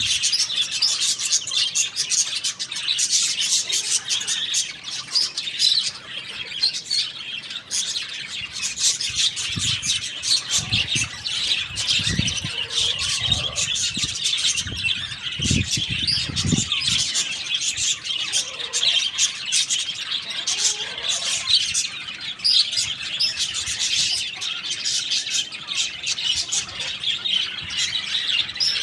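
Dense, continuous high-pitched chirping of birds, with a few short low thumps in the middle.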